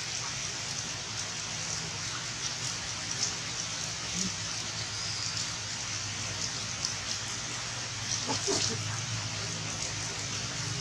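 Steady rain falling on forest leaves and rock, an even hiss broken by the pattering of single heavy drops. A brief faint voice-like sound comes about eight seconds in.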